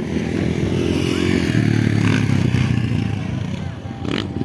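Dirt bikes' engines running and revving out on the motocross track, more than one machine at once, with the pitch shifting as they work through the course. A short knock sounds near the end.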